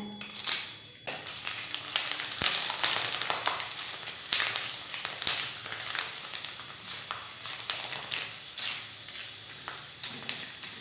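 Dried potato chips frying in hot oil in a wok. A sharp sizzle starts about a second in, when the chips go into the oil, and keeps on, with clicks and scrapes from a slotted spatula stirring them.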